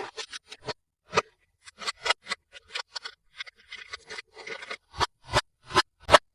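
Toys and packaging handled close to the microphone: irregular sharp taps and clicks, with a scratchy scraping stretch after about three and a half seconds.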